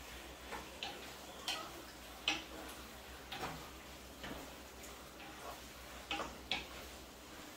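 A wooden spatula knocking and scraping against a frying pan while rice noodles are stirred, in irregular light taps about one every half second to a second.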